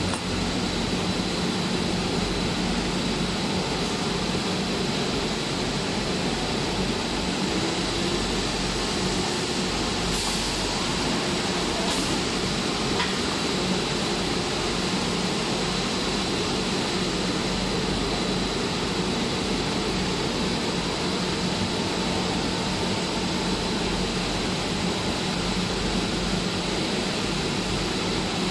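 Steady, continuous mechanical din of a PP hollow corrugated sheet extrusion line running, with a constant low hum and a thin high whine.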